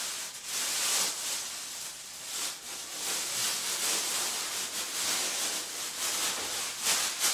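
Thin plastic packaging wrap crinkling and rustling as it is pulled off a new upright vacuum cleaner, with a sharper crackle near the end.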